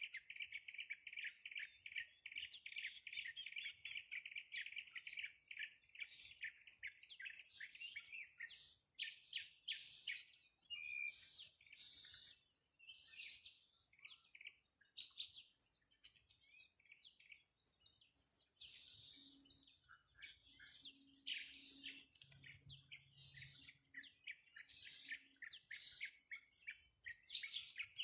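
Songbirds chirping: a rapid, even trill of high chirps for the first several seconds, then a busy run of separate, higher chirps and short phrases.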